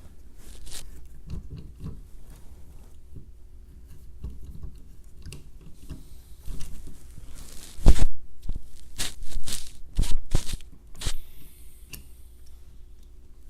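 A hand thread tap being worked back out of the freshly cut threads in the end of a metal brace tube. It makes irregular scraping and crunching clicks, with a few sharp knocks: the loudest about eight seconds in and a cluster a second or so later.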